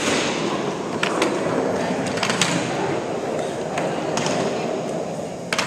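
Gym scooter boards rolling across a hardwood gym floor: a steady rumble from their small caster wheels, with several sharp clacks along the way.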